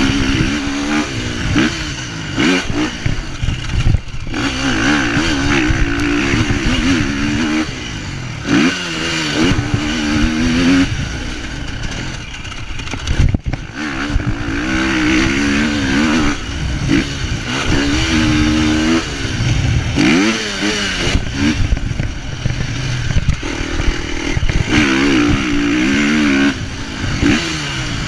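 Motocross bike engine revving hard and easing off again and again, its pitch climbing and dropping every second or two as the throttle is worked through the gears.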